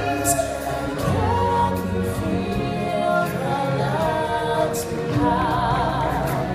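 Stage-show music: a choir singing over a band backing with a heavy bass, one voice holding a note with vibrato about five seconds in.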